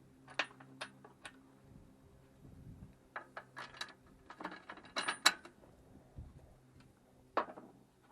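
Metal hand tools and bolts clinking and tapping on steel: three sharp clicks about half a second to a second in, a busier run of clinks in the middle, and one more knock near the end, over a faint steady low hum.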